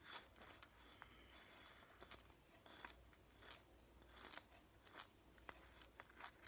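Faint clicks and light scraping as a bike multi-tool is handled and opened, with a sharper click at the end.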